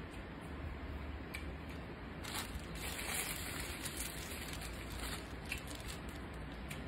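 A thin plastic bag crinkling in the hands for a second or two, with a few small clicks around it.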